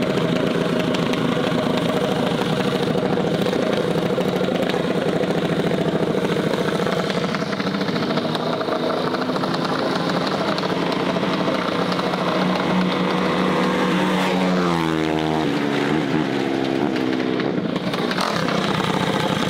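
Mini bike engine running steadily. About three-quarters of the way through its pitch drops and then climbs again as the revs change.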